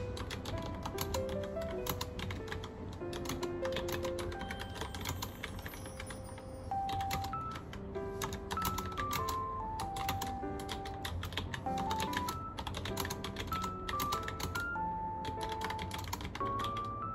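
Fast, irregular clicking of keys being typed on a keyboard with round typewriter-style keycaps, with a gentle piano tune playing underneath.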